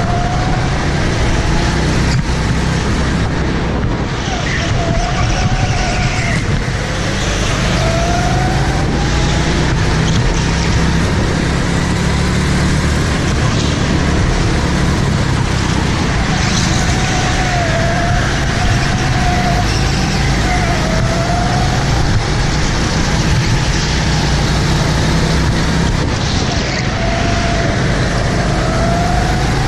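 Go-kart heard from an onboard camera, running at speed with its engine note repeatedly rising and falling through the corners over a steady rush of noise.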